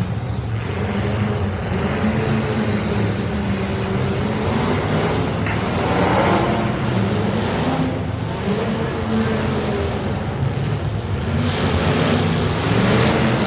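Demolition derby cars' engines running and revving, their pitch rising and falling again and again.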